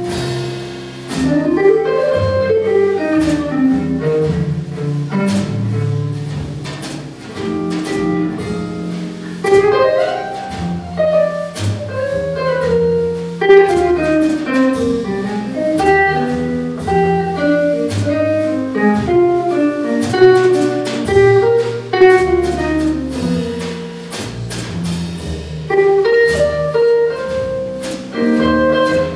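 A jazz quintet playing: fast single-note lines that run up and down over double bass and drum kit, most likely an electric guitar solo on a hollow-body guitar.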